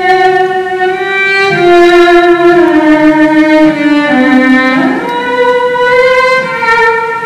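Yamaha cello and bayan (Russian button accordion) playing a melody together in long sustained notes that step down in pitch, then slide up about five seconds in.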